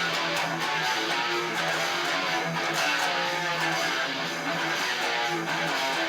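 Music: strummed guitar playing a steady rhythm, with a bass line under it.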